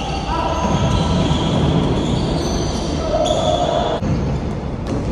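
Basketball shoes squeaking on a court: several short, high squeals at different pitches over a steady background din of play.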